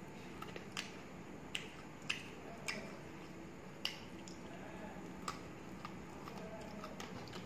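A person chewing a mouthful of rice and chicken liver, close to the microphone, with sharp wet mouth clicks and lip smacks at irregular intervals, about one a second.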